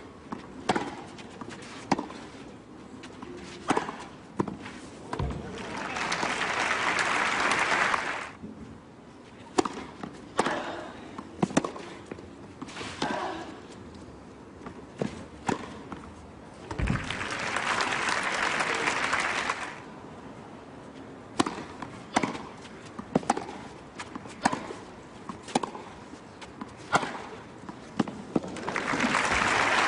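Tennis rallies on a clay court: the ball is struck by rackets with sharp pops about a second apart. Crowd applause breaks out three times as points end: around six seconds in, around seventeen seconds in, and again near the end.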